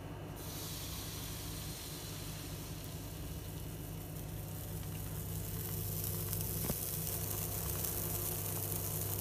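Pancake batter sizzling in a hot, oiled frying pan just after it is poured in: a steady hiss that starts about half a second in and slowly grows louder.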